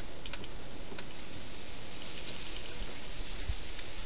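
A wild hedgehog feeding inside a clear plastic feeding box: a few faint, scattered crunching clicks over a steady hiss.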